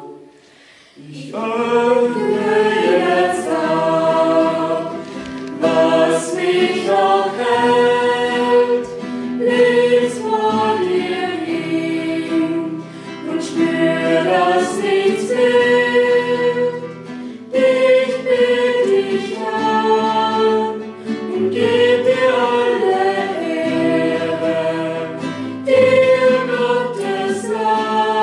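A small group of young female voices singing a hymn together in unison and harmony. They start about a second in, after a short pause.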